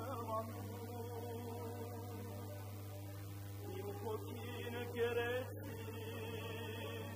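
Quiet closing music: a singing voice holding long, wavering notes, over a steady low hum.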